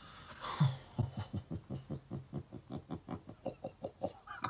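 A man's voice making a rapid run of short, wordless voiced sounds, about five a second, after a breath: delighted giggling or cooing.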